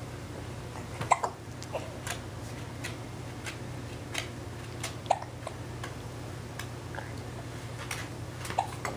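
Baby hiccupping repeatedly: short, sharp hiccups every second or so, a few of them louder than the rest.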